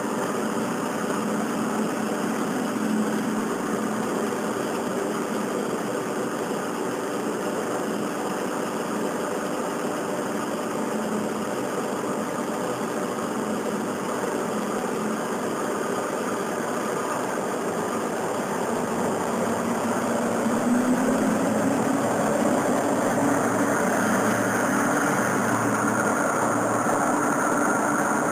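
Japanese diesel railcar engines (KiHa 58/KiHa 28 and KiHa 40 types) idling steadily, recorded through an early mobile phone's microphone. The engine sound grows louder over the last several seconds, with a deeper rumble.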